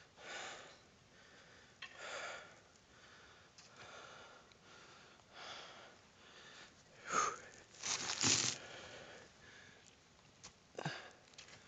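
A person breathing, soft hissing breaths about every two seconds, the loudest about eight seconds in.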